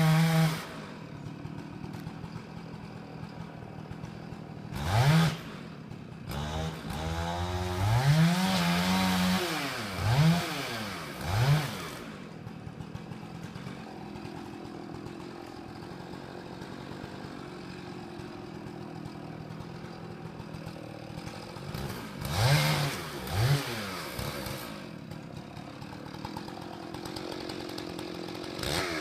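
Two-stroke chainsaw dropping from full revs to idle, then ticking over, with its throttle blipped in short rising-and-falling revs: several in the first dozen seconds and two more a little past the middle.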